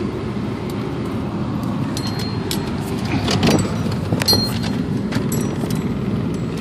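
Steady road and engine noise of a moving car, heard from inside the cabin, with scattered light clicks and rattles in the middle.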